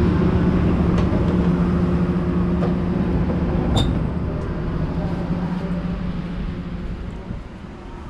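Passenger train carriage running: a steady rumble with a low hum inside the coach, fading over the second half. A few sharp clicks, the strongest about four seconds in.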